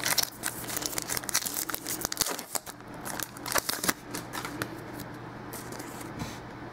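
Hands handling a trading-card pack: the wrapper crinkles and the cards rustle and flick against each other in quick, irregular clicks, busiest in the first few seconds.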